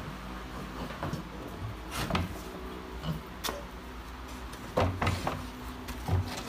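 Pigs moving about in their pen: scattered knocks and bumps, with a few louder thuds about five seconds in.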